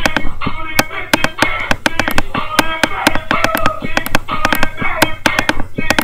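Dance music playing, crossed several times a second by sharp pops and knocks, the sound of a laptop's built-in microphone being jostled because the laptop is not on a table.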